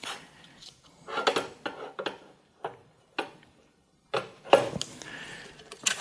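Metal fence-stop parts of a sliding crosscut table being handled and repositioned by hand: a series of light metallic clicks and clinks with short pauses between them.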